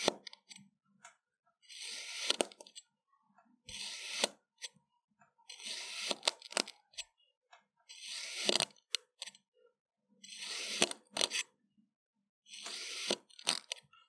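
A stainless-steel kitchen knife slicing down through a moulded slab of kinetic sand, about one cut every two seconds. Each cut is a short gritty crunch ending in a sharp tap as the blade meets the wooden board.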